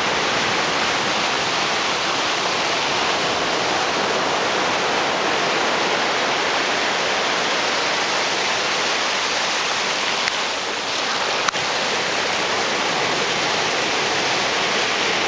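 Shallow surf washing in at the shoreline: a steady rushing hiss of small broken waves and foam.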